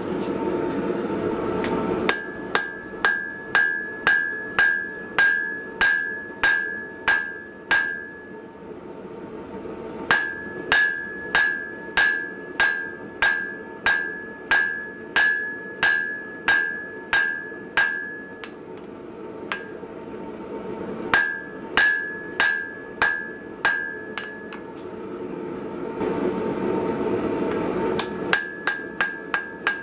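Hand hammer forging red-hot coil-spring steel on an anvil: runs of steady blows about two a second, each with a bright ring from the anvil. The blows come in four bouts with pauses between them, and the last bout is quicker, lighter taps near the end.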